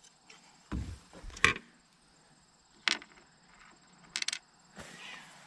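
Light knocks and clicks of a MerCruiser's round metal flame arrestor being lifted off the carburetor and set down on the engine: a low thump, a sharp knock, a few single clicks and a quick rattle of clicks about four seconds in.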